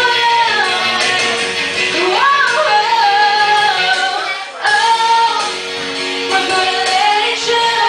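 A young woman singing into a handheld microphone over a backing music track. The sung melody slides between held notes, with a short break about four and a half seconds in.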